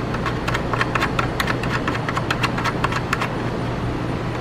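Rapid light clicks of a bolt being turned in by the fingers on the plastic beak's mount, about seven or eight a second, stopping about three seconds in. A steady low hum runs underneath.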